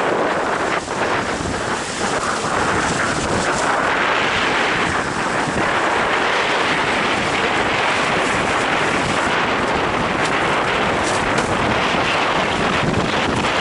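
Strong wind buffeting the microphone over the rush and splash of water as a windsurf board sails fast across choppy water.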